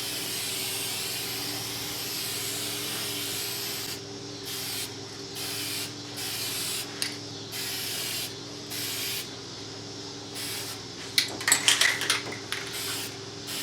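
Aerosol spray can of trim and bumper paint spraying: one continuous spray for about four seconds, then a series of short bursts with pauses between. Near the end comes a quick cluster of sharp clicks, the loudest sound.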